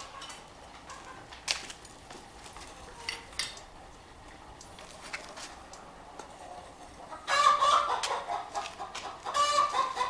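Chickens cackling loudly, in two bursts starting about seven seconds in, after a stretch of only a few faint clicks and knocks.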